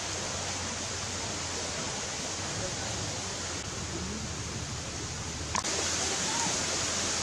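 Steady outdoor background hiss with no distinct source. A short click about five and a half seconds in, after which the hiss is a little louder and brighter.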